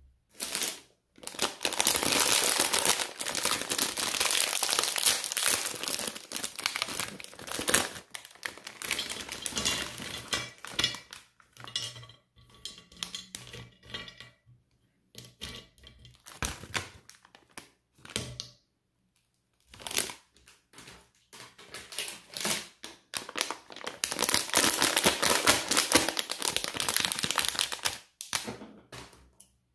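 Plastic sweet packets crinkling and rustling in the hands for the first several seconds, then scattered light clicks and taps as chocolate buttons are dropped into a ceramic serving platter. Dense crinkling comes again near the end as a plastic Haribo gummy bag is handled.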